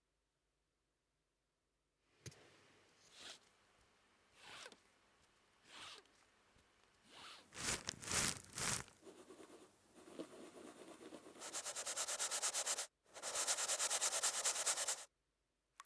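Foley sound effects for a toy being repaired: several separate rubbing strokes about a second apart, louder ones near the middle, then two long runs of fast, evenly spaced ticks that stop suddenly.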